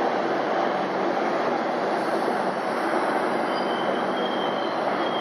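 Express train approaching behind a pair of ALCO diesel locomotives (WDM3D and WDM3A, 16-cylinder ALCO 251 engines), giving a steady rumble of engines and wheels on the rails. From a little past halfway, thin high wheel squeals come in over it.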